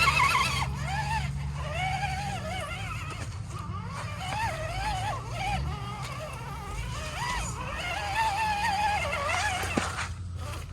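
Electric motors of RC rock crawlers whining, the pitch rising and falling over and over as the throttle is worked, over a steady low rumble.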